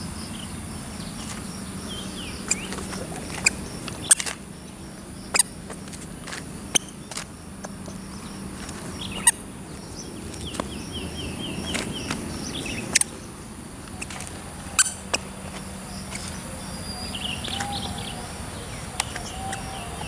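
Birds chirping in short series of quickly repeated notes, over a steady low hum and a high hiss, with scattered sharp clicks.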